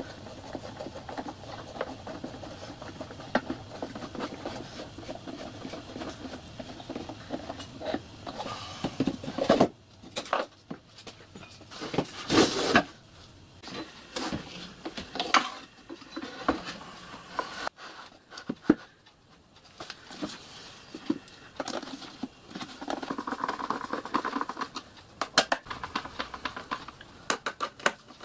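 Wooden OSB drawers and panels scraping, sliding and knocking as they are handled and fitted into a small cabinet, with irregular sharp knocks scattered through.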